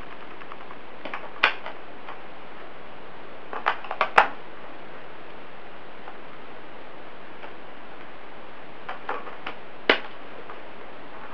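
Small plastic clicks and taps from the battery compartment of a wireless keyboard as AAA batteries are put in and the compartment cover is fitted: a couple of clicks about a second in, a cluster around four seconds and another around nine to ten seconds, over a steady low hiss.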